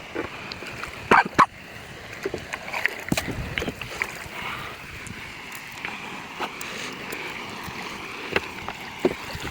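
River water rushing steadily, with small splashes and sloshes throughout and two loud sharp knocks or splashes close together about a second in.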